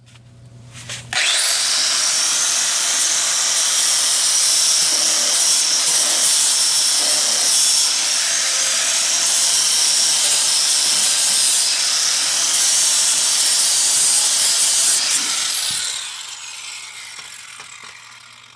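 Handheld power grinder spinning up about a second in and grinding steadily for about fourteen seconds, then switched off and winding down, its whine falling as it coasts to a stop.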